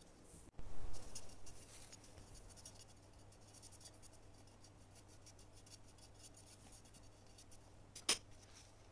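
A flat paintbrush scratching and rubbing as it brushes decoupage glue over a paper napkin on a frosted glass lamp. There is a bump of handling about half a second in, and a sharp tap near the end.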